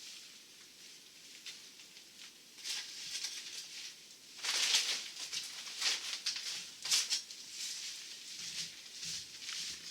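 Scraping and rustling of demolition debris being cleared up, in irregular strokes, with a few louder scrapes past the middle.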